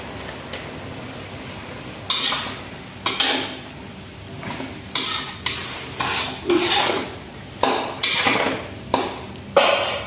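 Metal spatula stirring and scraping a stir-fry around a wok, over a low frying sizzle. The scrapes start about two seconds in and repeat roughly twice a second.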